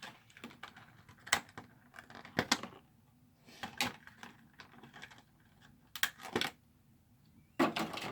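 Scattered clicks, taps and short rustles of booster packs and card-box packaging being handled and set down on a table.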